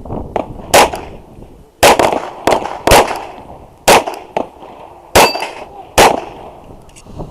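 Glock 34 9mm pistol firing seven shots in an uneven string over about five seconds, with steel plate targets clanging as they are hit.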